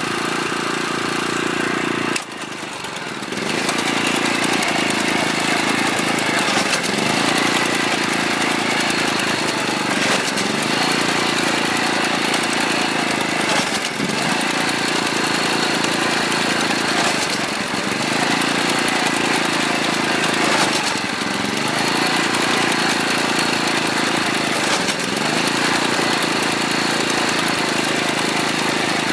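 Small engine of a rice harvesting machine running steadily, its pitch dipping briefly and recovering about every three and a half seconds as it takes load, with a short drop in level about two seconds in.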